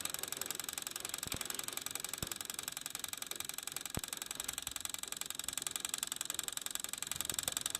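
Dual CS 5000 turntable motor running with a fast, steady rattle and a few sharp clicks: the glue holding its coil has come loose, which the owner names as the cause of the rattling.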